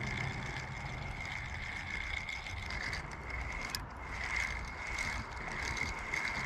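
Fishing reel being cranked to retrieve a cast lure: a steady mechanical whir with an even ripple, and a single sharp click about four seconds in.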